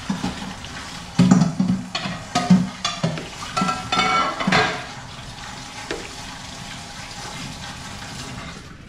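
Dishes and pots clattering and clinking over food frying in a pan, then a steady sizzle of frying onions alone for the last few seconds.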